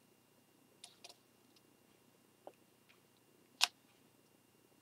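Faint handling noise: a few small, sharp clicks and taps from a pencil and fingers on a cardboard model rocket body tube, the loudest about three and a half seconds in.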